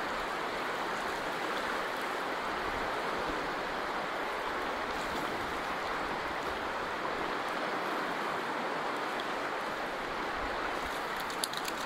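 River water flowing steadily as an even rushing sound, with a few faint sharp clicks near the end.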